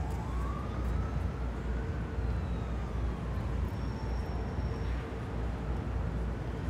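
A siren wailing faintly, its pitch sliding slowly up and down, over the steady low rumble of city traffic.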